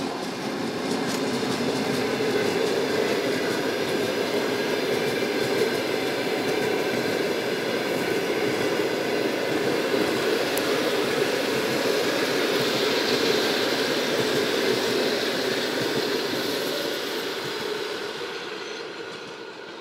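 Passenger coaches of a train hauled by an EP20 electric locomotive rolling past, a steady rumble of wheels on rail. The noise fades over the last couple of seconds as the end of the train goes by.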